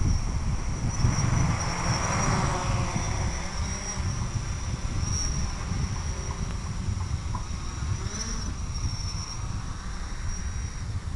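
Electric motor of an FPV model aircraft whining steadily at a high pitch, with wind rumbling across the microphone. A swell of rushing noise comes about two seconds in.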